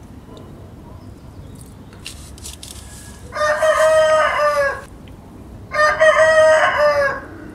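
Rooster crowing twice, each crow about a second and a half long, with a short gap between them.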